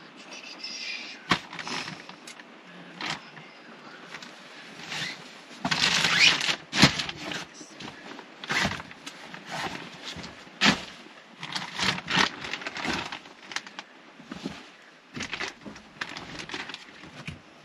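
Irregular rustling, scraping and knocks of bedding and tote bags being handled and set down, with a longer, louder rustle about six seconds in.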